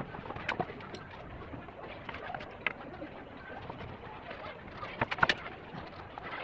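Wooden battens knocking and clattering on a concrete floor as they are handled and set down: a few single knocks, then a quick cluster of sharper knocks about five seconds in.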